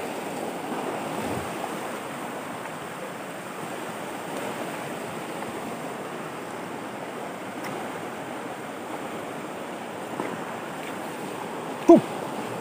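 Fast river rapids rushing over rocks, a steady noise of white water. Near the end a brief, loud sound falling quickly in pitch cuts through it.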